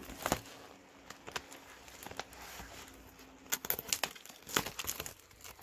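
Packaging crinkling and rustling as it is handled, in scattered short crackles that come thickest about two thirds of the way through.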